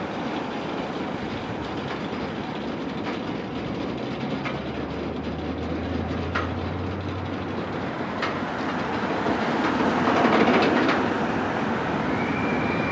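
Roller coaster train hauled up its chain lift hill: a steady mechanical rumble with occasional sharp clanks. It grows louder about ten seconds in as the train nears the crest.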